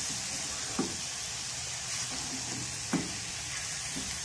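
Grated carrot halwa sizzling steadily in a metal pot over low heat while a silicone spatula stirs it, the moisture cooking off so the mixture dries like khoya. Two short knocks of the spatula against the pot, about one second and three seconds in.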